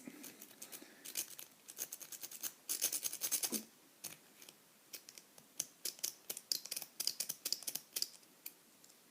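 A metal rake pick scraping and clicking rapidly against the pin tumblers of a Yale padlock as it is raked in and out under tension. The scraping is densest about three seconds in, then thins to scattered ticks.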